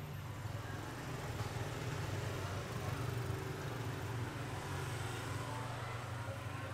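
Low engine rumble of a passing motor vehicle, swelling toward the middle and easing off near the end.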